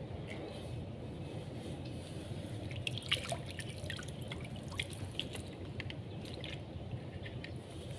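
Water drops falling into still water under a concrete culvert: scattered, irregular drips, more of them from about three seconds in, over a steady low rumble.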